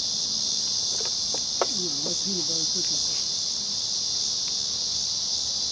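Steady, high-pitched chorus of insects. Faint voices murmur about two seconds in, just after a single light knock.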